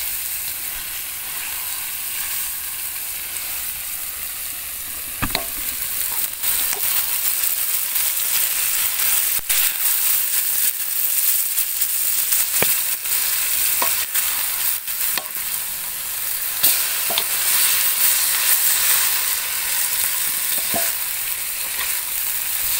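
Whole fish frying in oil in a metal wok, sizzling steadily, with a metal ladle clicking and scraping against the wok now and then. The sizzle gets louder about five seconds in.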